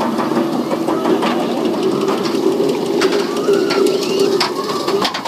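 Wing coaster train climbing the lift hill: a steady low mechanical hum with scattered clicks.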